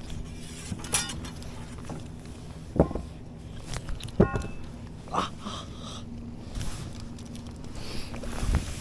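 Fish and tackle handling on a boat deck: a few scattered knocks and clicks over a low steady hum.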